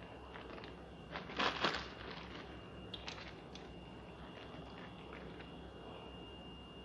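Soft handling noises as crushed pistachios are scattered by hand over the syrup-soaked basbousa: a short rustle about a second and a half in and a few light clicks around three seconds, over a steady low hum.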